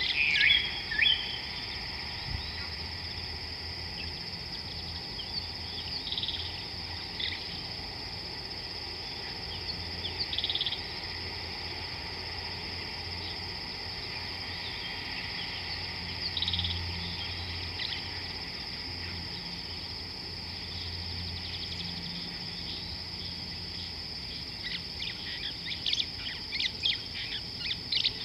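Steady high-pitched drone of an insect chorus, with short bird chirps scattered through it and a run of quick chirps near the end.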